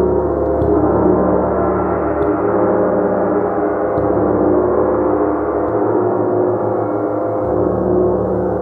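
A gong being played continuously, giving a dense, sustained wash of many overlapping ringing tones. It is struck again lightly about every one and a half to two seconds, each stroke shifting the low hum without a sharp attack.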